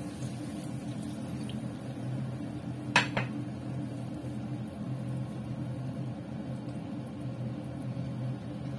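Water poured from a cup into a stainless steel wok of chicken gizzards in soy sauce, over a steady low hum. About three seconds in there is a sharp double clink.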